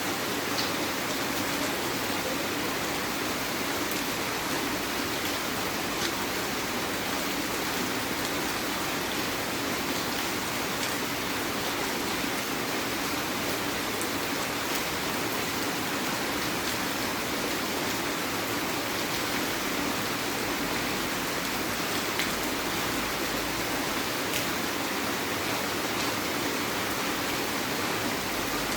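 Heavy rain falling steadily, with scattered sharper drop ticks.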